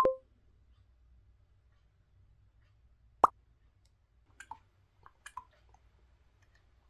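A short plop at the start, then a single sharp click about three seconds in and a few faint small clicks, as a small plastic bottle is handled and its clear liquid poured into a glass beaker on a kitchen scale, during lip balm making.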